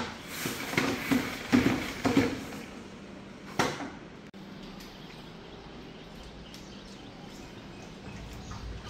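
Several plastic clunks and scrapes from a spin mop and its wheeled plastic bucket being handled on a wet tiled floor, with one sharper knock about three and a half seconds in. After that only a faint steady background remains.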